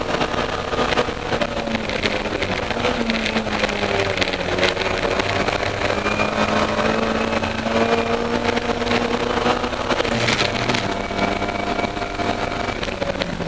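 Austin Mini Cooper race car's four-cylinder A-series engine heard from inside the cabin, running hard at racing revs. Its pitch drops and climbs again a few times as the driver changes gear and brakes for corners, over a steady rush of wind and road noise.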